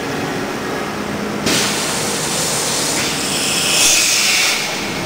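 DAMA HDC-1640 high-speed drilling center running with a steady machine hum. About a second and a half in, a loud hiss starts suddenly, grows stronger about three seconds in, and cuts off near the end.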